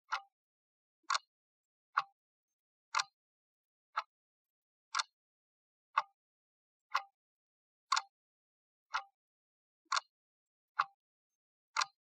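Clock ticking: short, sharp ticks, evenly spaced at about one per second, with nothing else between them.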